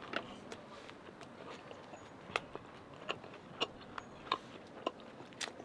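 A person chewing a mouthful of food with the mouth closed, with irregular sharp wet clicks and smacks of the mouth.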